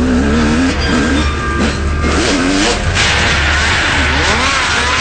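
Snowmobile engines revving up and down; about three seconds in a higher, harsher engine sound takes over.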